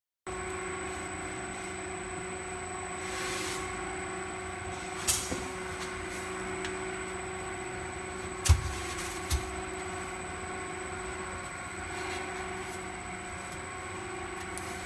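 EPS foam block cutting machine running with a steady mechanical hum of several held tones. Three short knocks sound about five, eight and a half and nine seconds in, the middle one the loudest.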